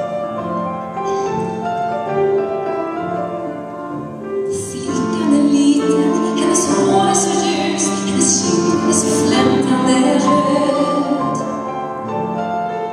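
A woman singing a song with grand piano accompaniment. The piano plays alone at first, and the voice comes in about five seconds in.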